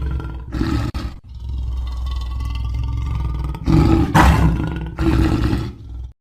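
Lion growling and roaring: a long low rumbling growl, then two louder roars about four and five seconds in, cutting off suddenly near the end.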